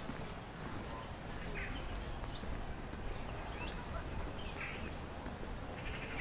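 Outdoor garden ambience: scattered short bird calls, several within a few seconds, over a steady low rumble.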